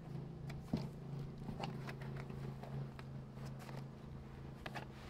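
Scattered light knocks and clicks of packaging and gear being handled during unpacking, the sharpest about a second in, over a steady low hum.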